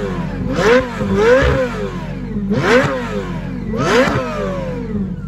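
Ferrari F430 Spider's V8 through a Fi Exhaust valvetronic cat-back, free-revved at a standstill: four quick throttle blips whose pitch rises and falls back to idle between them.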